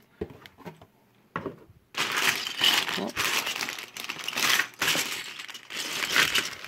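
Clear plastic polybags full of plastic building bricks crinkling as they are handled, starting about two seconds in after a near-quiet stretch with a small click.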